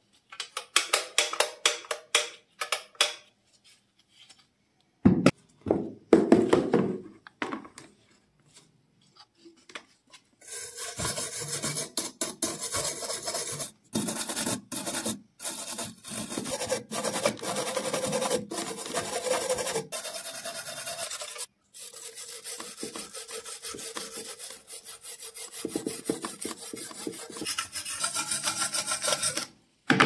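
A hand brush scrubbing the cast metal body of a vintage gas lighter in quick rubbing strokes. A few seconds of rapid strokes come at the start, and a louder burst about five seconds in. From about ten seconds in the scrubbing is nearly continuous, broken by a few brief pauses.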